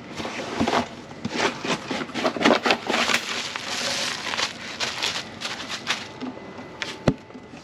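Small metal mounting brackets and fasteners being tipped out of their tube and handled, clicking and clattering against each other with rustling in between, and one sharp knock about seven seconds in.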